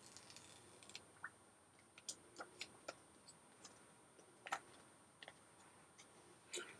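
Near silence with faint, irregularly spaced clicks and ticks, about a dozen, the loudest about four and a half seconds in.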